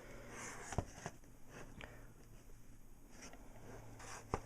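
Faint handling noise from a cardboard trading-card booster box: light rustling with a few soft taps and clicks, one about a second in and another near the end.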